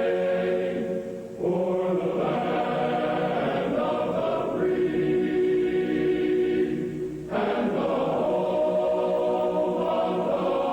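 Choral music: long held chords of voices, moving to a new chord about one and a half seconds in and again about seven seconds in.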